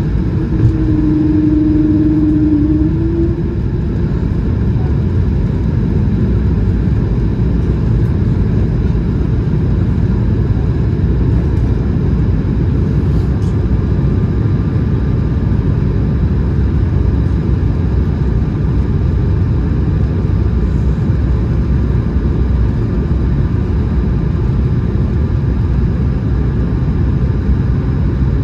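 Steady, loud cabin noise of an Airbus A220-100 in flight: a deep rumble of airflow and its Pratt & Whitney PW1500G geared turbofan engines. A steady hum rises slightly and stops about three seconds in, and a faint thin whine joins about halfway.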